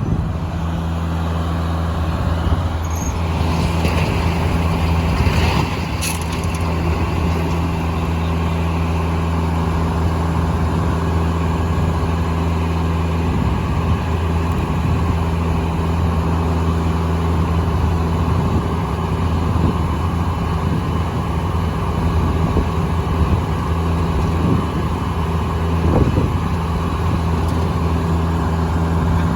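Foley Belsaw circular sawmill running steadily, its engine giving a constant low drone. A few short knocks and clatters come about four to six seconds in and again near the end.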